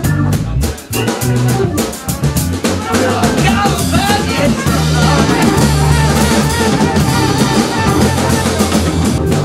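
Music with a busy drum kit playing many quick hits over held bass notes and a wavering melody line.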